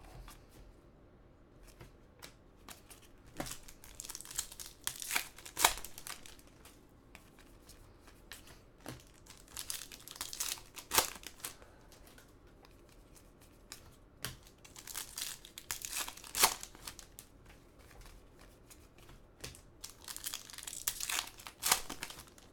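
Foil wrappers of trading-card packs crinkling and tearing while the cards are handled. The rustles come in short bursts with scattered clicks, about every five seconds.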